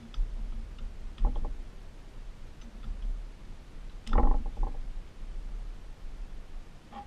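Light clicks and knocks of hands handling a pit bike's front brake caliper and pads, with a short burst of louder knocks about four seconds in.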